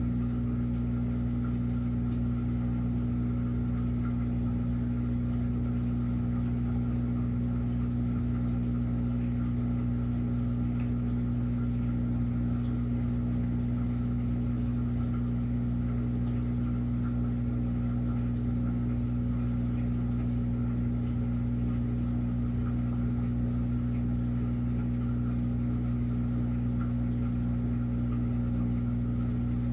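Washing machine running, its motor giving a steady low hum that does not change.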